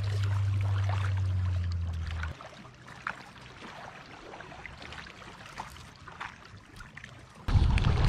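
A steady low hum for about two seconds, then small waves lapping faintly at a rocky lake shore, then wind buffeting the microphone with a loud rumble near the end.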